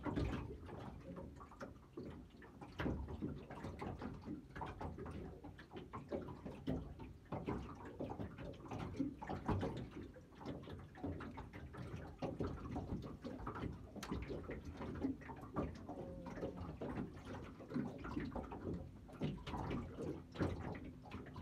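Small waves lapping and slapping against the hull of a small fishing boat, with irregular knocks and splashes.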